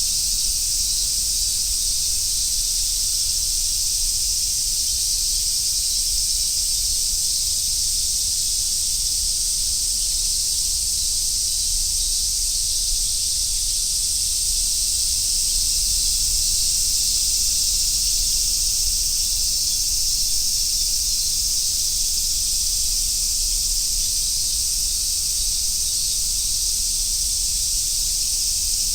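Cicadas chorusing in summer woodland: a dense, steady, high-pitched hiss that holds on without a break.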